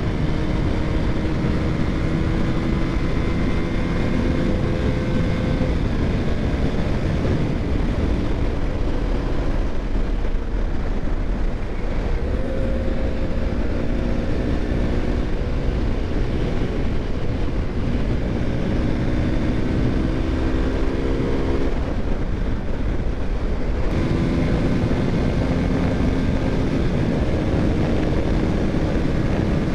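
Motorcycle engine running while riding, its pitch rising and falling several times with throttle and gear changes, over a steady rush of wind and road noise.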